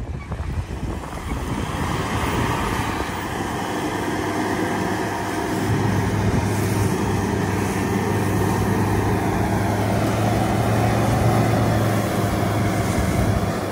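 Ford Ranger's 2.2 four-cylinder turbo diesel revving up and held at high revs while the rear tyres spin in loose red dirt, spraying it, with the rear differential locked. The engine note climbs over the first few seconds, then holds steady and loud under a hiss of flung dirt.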